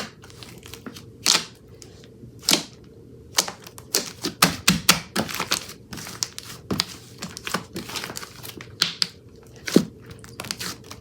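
Purple slime being squished and pressed by hand, giving irregular sharp clicks and crackling pops, some in quick clusters.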